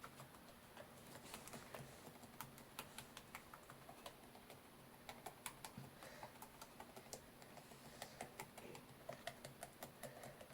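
Faint, irregular clicks and small pops of slime being squeezed and kneaded by hand, several a second at uneven spacing.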